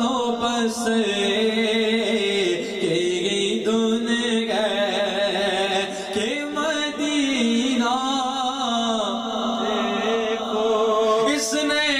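A man singing an Urdu naat (Islamic devotional song) solo into a handheld microphone, drawing out long wavering notes that glide up and down.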